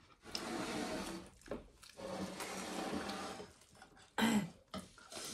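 Someone slurping sambhar close to the microphone in two long, noisy pulls, then a short voiced 'mm' about four seconds in.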